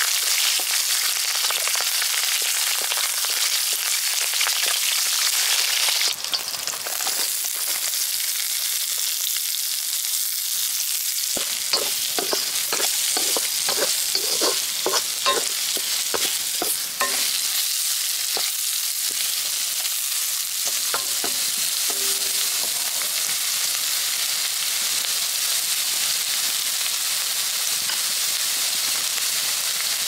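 Green chillies, fennel and cumin seeds, and then sliced onions and curry leaves, sizzling in hot oil in an iron wok. The sizzle changes about six seconds in. Between about 12 and 17 seconds a metal spatula scrapes and knocks against the wok a dozen or so times.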